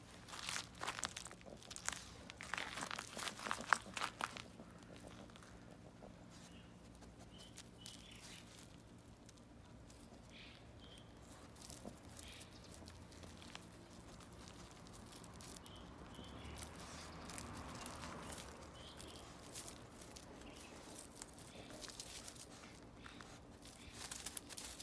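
Scattered crunching and crackling on gravelly ground with dry leaves and weeds as a Pomeranian noses and paws around. The crunching is busiest in the first four seconds and picks up again near the end, with a quieter stretch in between.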